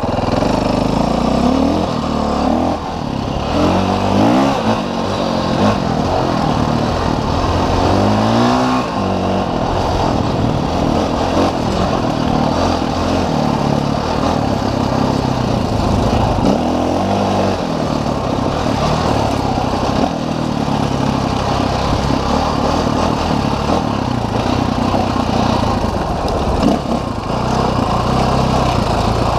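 Dirt bike engine running under load, its revs climbing and dropping again and again as the rider opens and closes the throttle.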